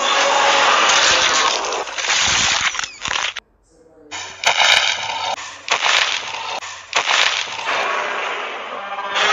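Dubbed monster-battle sound effects: loud, noisy blasts and crashes that cut out for a moment about three and a half seconds in. Then comes a short pitched sound, followed by more noisy bursts.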